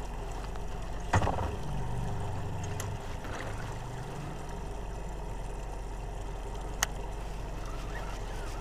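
Steady low hum and background noise aboard a small fishing boat, with a single thump about a second in, a low hum for a few seconds after it, and a sharp click near the end.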